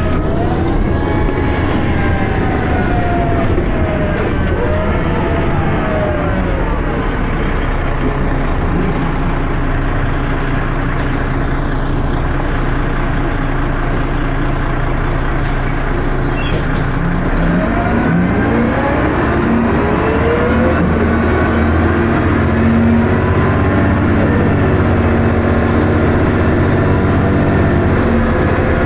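Dennis Arrow bus's engine and ZF automatic gearbox heard from on board, running hard, with a whine that rises and falls twice as the bus pulls away and changes gear.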